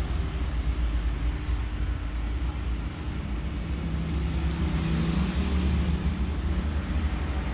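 Road traffic noise: a steady low engine rumble of passing motor vehicles.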